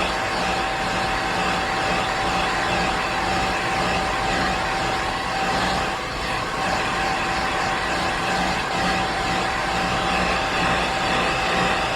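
A household appliance's electric motor running steadily, a constant whine held over an even rushing noise.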